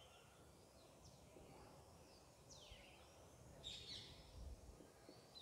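Near silence, with a few faint, short falling chirps spread through it.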